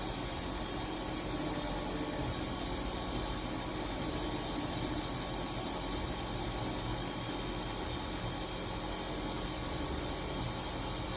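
Nebulizer compressor running steadily: a constant motor hum under an even hiss of air and mist.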